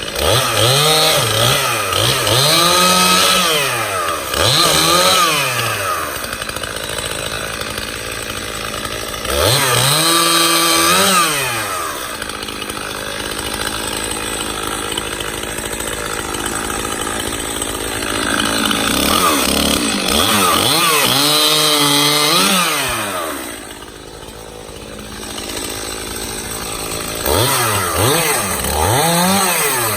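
Two-stroke Stihl chainsaw cutting up oak limbs, its engine revving up and down over and over as the throttle is worked through the cuts. It drops back to a lower idle for a couple of seconds about three-quarters of the way in, then revs up again.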